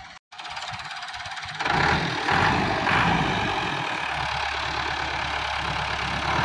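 Ford 5880 tractor's diesel engine working under load as the tractor shoves and drags a tree with its front implement. The sound is thin at first, then the engine comes in loud about a second and a half in and runs on steadily.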